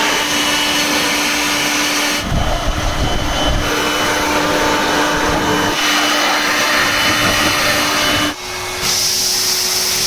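Vacuum cleaner running steadily with a humming whine. The sound changes abruptly about two seconds in, drops out briefly near the end, and comes back slightly higher in pitch.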